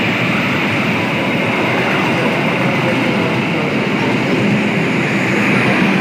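Passenger coaches of a diesel-hauled long-distance train passing through a station at speed: a loud, steady rumble of steel wheels running on the rails.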